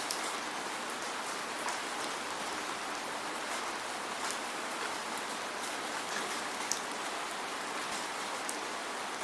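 Steady rain falling, an even hiss with scattered close drops ticking sharply, and no thunder.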